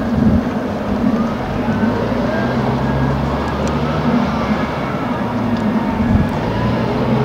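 Heavy diesel earthmoving machinery running steadily, a deep engine hum with faint higher tones that slide up and down.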